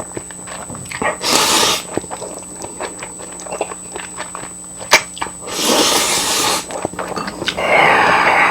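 Close-up eating sounds: small wet chewing clicks throughout, with three longer noisy bursts of mouth and breath noise, about a second in, past the middle and near the end.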